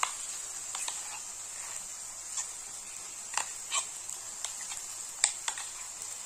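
Metal spoon scraping and tapping against a stainless steel bowl as thick ground chickpea paste is pushed out into a pan: irregular light clicks, the sharpest about five seconds in.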